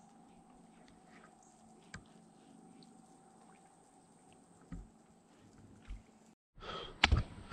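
Quiet outdoor background with a faint steady hum and a few soft knocks. Near the end, after a brief dropout, a burst of loud sharp clicks and rustling close to the microphone.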